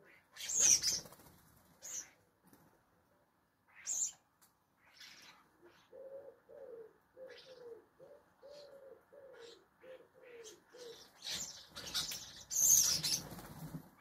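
Birds at a garden feeder: wings flapping in loud bursts about a second in and again near the end, and a run of about ten low, slightly falling dove-like notes in the middle, about two a second.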